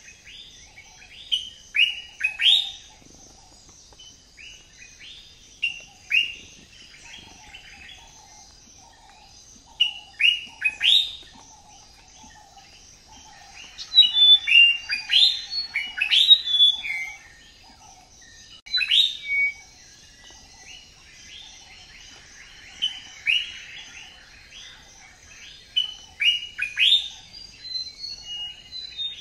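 Many small birds chirping: quick, high, downward-slurred chirps coming in bursts, busiest around the middle, over a faint steady high hum.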